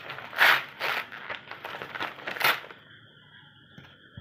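Brown paper mailing envelope being pulled and torn open by hand: a series of crackling paper rips and rustles, loudest about half a second in and again near two and a half seconds, then quieter for the last second.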